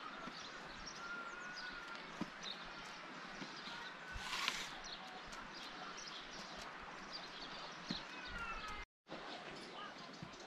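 Quiet rural outdoor ambience with faint bird chirps and a few light taps, and a brief rustling burst about four seconds in. The sound drops out for a moment near the end.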